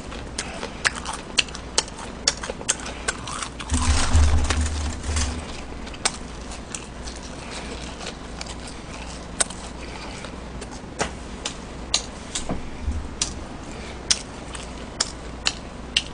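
Close-miked chewing of fried chicken: wet mouth sounds with many sharp crunching clicks at an uneven pace. About four seconds in there is a low rumble lasting a second or so.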